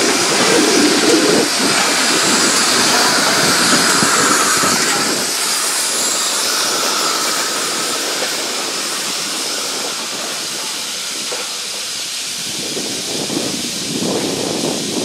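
Pere Marquette 1225, a 2-8-4 Berkshire steam locomotive, rolling past with a loud, steady hiss of escaping steam, heard along with the train running on the rails. The hiss grows somewhat quieter after about five seconds as the locomotive draws away.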